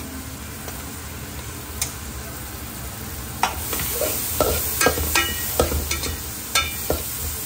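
Chillies and chopped capsicum sizzling as they fry in oil in a pan. From about halfway in, a utensil stirs them and strikes the pan in a run of sharp, ringing clangs.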